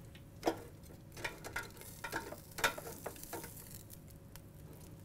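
Metal tongs clicking and scraping against the air fryer's basket as cooked steaks are lifted out, a handful of light, irregular clicks mostly in the first three seconds.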